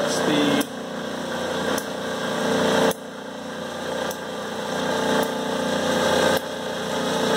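Clausing 5914 lathe running, its motor and Reeves variable-speed belt drive giving a steady mechanical hum that swells and drops back abruptly several times, as hydraulic fluid is pumped into the drive to spread the sheave plates and raise the speed.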